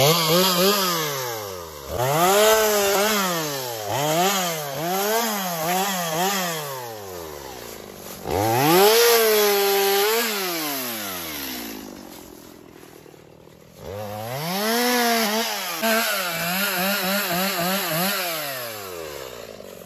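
Gas chainsaw cutting through fallen saplings and branches. The throttle is squeezed and released over and over, so the engine pitch climbs and falls about once a second. There is one longer steady cut near the middle and a lull of a couple of seconds before it revs up again.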